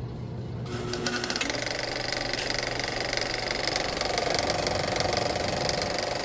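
A machine running steadily with a fast, even rattle.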